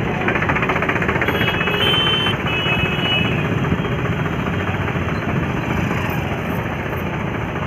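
Road traffic, with a motor vehicle engine running close by and a horn sounding briefly about one and a half to three seconds in.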